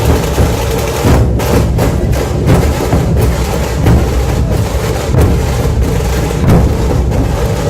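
Puneri dhol-tasha ensemble drumming: massed dhol drums booming in the bass under sharp, crackling tasha strokes, loud and continuous with a heavy recurring accent.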